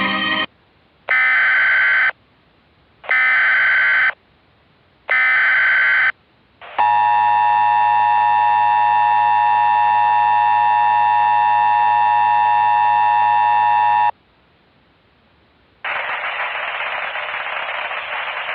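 Emergency Alert System tones: three one-second bursts of SAME header data about a second apart, then the steady two-tone attention signal held for about seven seconds. It cuts off, and after a short pause a steady hiss of static begins.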